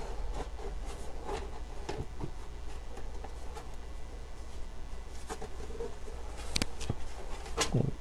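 Light clicks, taps and rubbing of metal parts as a homemade metal drive cage on rubber-buffered screws is worked into place in a Cooler Master Elite 130 computer case, with a couple of sharper knocks near the end. A low steady hum runs underneath.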